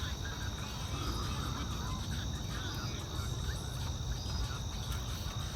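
Insects, crickets or the like, trilling steadily as one high, continuous tone, over a constant low rumble.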